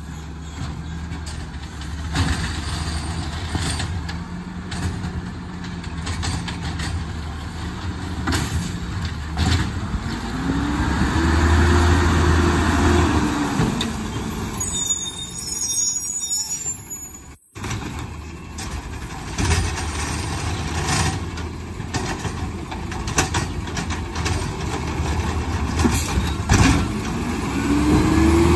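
Engine of a natural-gas McNeilus ZR automated side-loader garbage truck running as the truck rolls up and pulls in to the curb. About ten seconds in, the engine revs up and back down in one smooth rise and fall. A few seconds later comes a short hiss and squeal of the air brakes, and another rev starts near the end.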